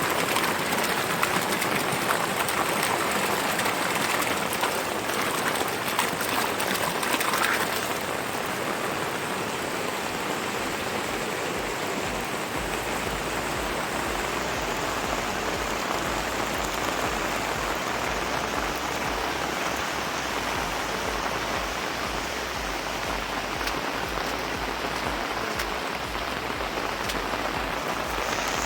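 Steady hiss of water, falling and running, a little louder for the first few seconds.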